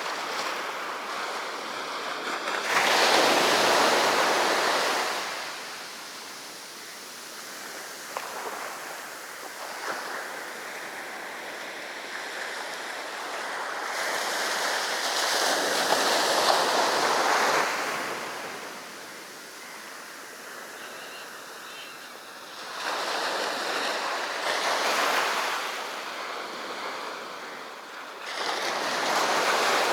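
Sea surf breaking on the shore: four waves crash and wash up, about 3 seconds in, around the middle, about 23 seconds in and near the end, with a softer hiss of water between them.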